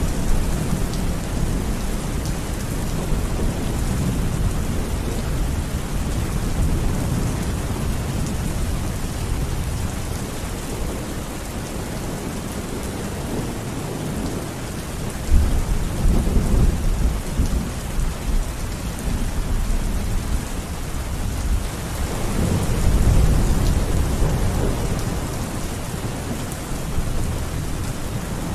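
Steady rain falling, with low rolls of thunder that swell up about halfway through and again a little later.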